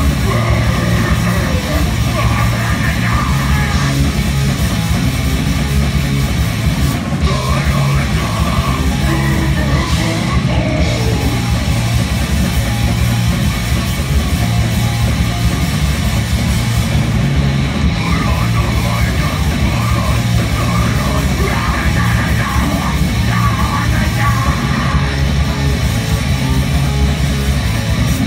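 Loud live crust punk/grindcore band playing: heavily distorted guitars, bass and fast drums in a dense, unbroken wall of sound, with a vocalist shouting over it.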